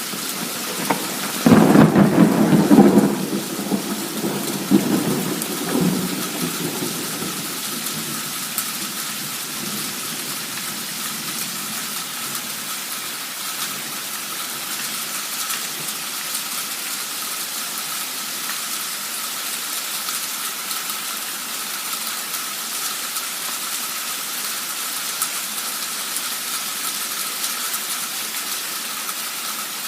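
Heavy downpour hissing steadily, with a loud thunderclap about a second and a half in that rumbles for a second or two and dies away in a couple of smaller rolls.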